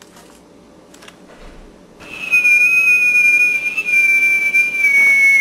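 A long, loud, high whistle sets in about two seconds in. It holds one note that sags slowly in pitch, with a fainter second tone beneath it.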